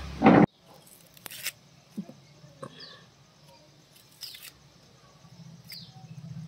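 Faint, scattered clicks and light scraping of a small kitchen knife peeling garlic cloves and onion skins by hand. A louder sound fills the first half-second, and two faint high chirps come about three seconds and nearly six seconds in.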